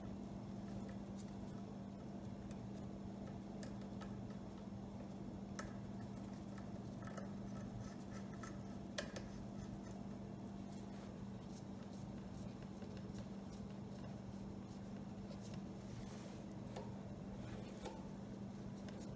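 Faint small clicks and scratches of a screwdriver and small metal parts being handled at a Walbro carburetor while the throttle linkage is fitted, over a steady low hum. One sharper click about nine seconds in.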